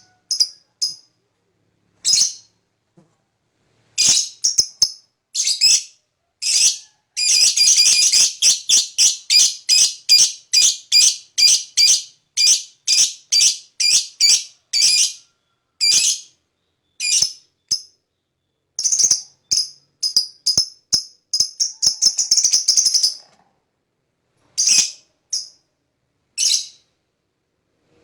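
Lovebird calling in long runs of shrill, high chirps, about three a second, broken by short pauses: the long chattering song that keepers call ngekek.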